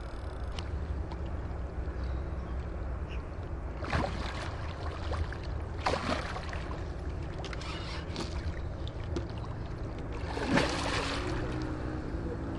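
Hooked beluga sturgeon thrashing at the water's surface as it is played in close: several sudden splashes about four, six and eight seconds in and the loudest near the end, over a steady low rumble.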